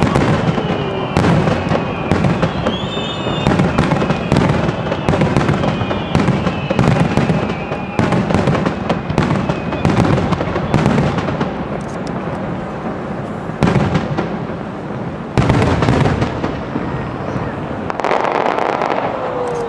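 Japanese aerial fireworks display: a rapid, continuous run of shell bursts and bangs, with several whistles that slowly glide down in pitch. A dense crackling burst comes near the end.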